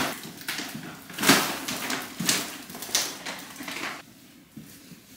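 Handling noise as a shopping bag is set down on a kitchen counter and rustled, with a few sharp knocks and rustles over the first three seconds, then footsteps on a tiled floor. It goes quieter near the end.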